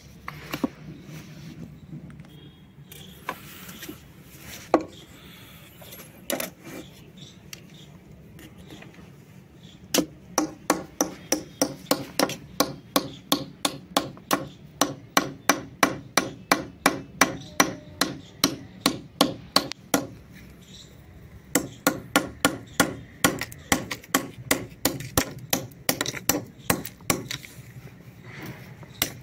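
A hammer taps the spine of a knife blade set across a block of shale, driving it into the stone to split it. The strikes are sharp and rapid, about three or four a second, starting about a third of the way in and pausing briefly about two-thirds in. Before that there are a few scattered cracks and knocks as a slab of shale is handled.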